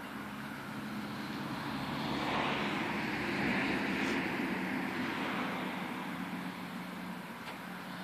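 A vehicle passing by: a broad rushing sound that swells to a peak about three and a half seconds in and then fades away, over a steady low hum.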